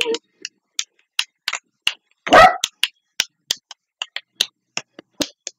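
A run of sharp hand claps, about three a second and quickening toward the end, with one louder short yelp about two and a half seconds in.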